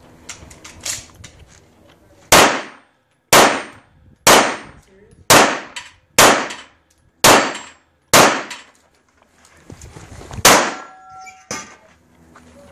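Pistol shots fired in a USPSA stage: eight loud shots about a second apart, with a longer pause before the last one, and a few fainter pops in the first second.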